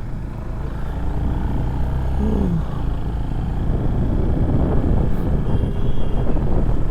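Motorcycle engine running under way with wind and road noise, growing louder toward the end.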